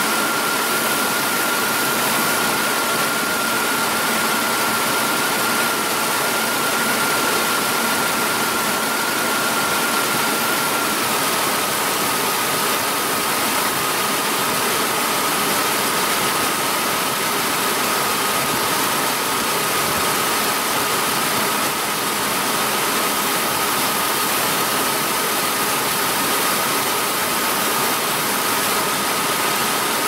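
Mazda B3000's 3.0 V6 running at idle with a lean condition and a misfire, under a steady rushing noise. A thin whine sits above it and drops slightly in pitch about eleven seconds in.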